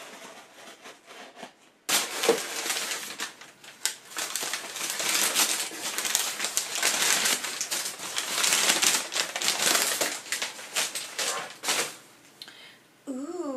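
Crumpled packing paper being pulled out of a cardboard box, a loud dense crinkling and rustling that starts suddenly about two seconds in and stops near the end. Before it, faint ticks of scissors cutting packing tape on the box.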